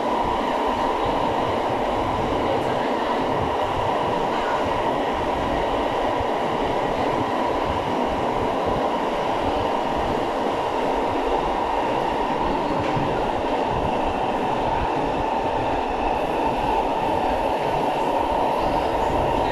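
SMRT C651 metro train heard from inside the carriage while running at a steady speed: a constant rush and rumble of wheels and motors that holds the same level and pitch throughout.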